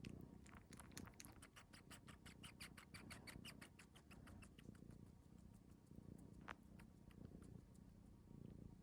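A cat suckling on fabric, nursing-style, making quick, soft sucking clicks about six a second that thin out and fade about halfway through, with one sharper click later.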